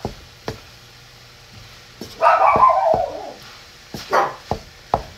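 Pet dogs barking: a drawn-out bark that falls in pitch about two seconds in, then three quick barks near the end. A couple of sharp knocks at the start.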